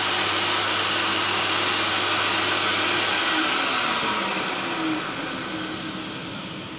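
Dust extractor vacuum running steadily, then switched off about three seconds in and winding down, its pitch sliding lower as the rushing air fades away.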